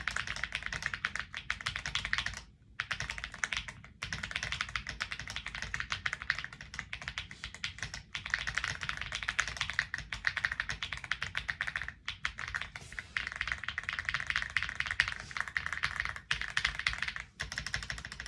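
Fast typing on a Weikav Nut65 custom mechanical keyboard with Gateron tactile switches: a dense, continuous stream of key clacks, broken by a few brief pauses.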